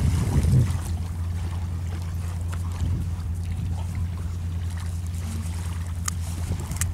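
A dog digging in sand with its front paws over a steady low drone, with two small clicks near the end.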